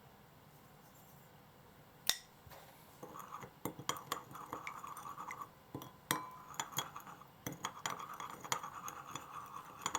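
A utensil stirring sauce in a dish, scraping and clinking against its sides in quick irregular taps. It starts about three seconds in, after a single click.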